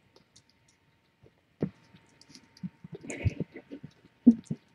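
Soft, irregular bumps and rustles of newborn kittens squirming and pushing against a close microphone, with small clicks. They grow busier from about halfway.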